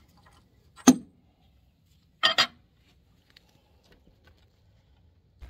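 Sharp metallic clinks of a steel hand tool knocking against the engine's metal: one about a second in and a quick double one a second and a half later, with a few faint ticks between.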